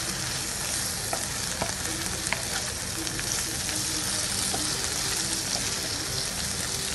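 Potato strips sizzling steadily in hot mustard oil in a non-stick kadhai while being stirred with a spatula, as the dry spices are mixed in and start to roast. A few light clicks sound about one to two and a half seconds in.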